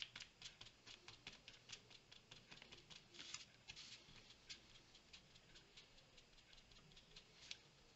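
Faint, irregular light ticks and scratches of a small applicator being dabbed onto a paper tag and the paper being handled. There are several ticks a second at first, thinning out after about four seconds.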